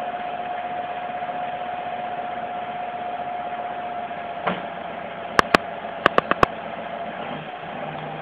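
Heavy truck's diesel engine running steadily at low speed, a continuous hum with a steady tone in it, while the truck edges across a log bridge. About five seconds in there is a quick cluster of six sharp clicks, and near the end a deeper engine note comes in.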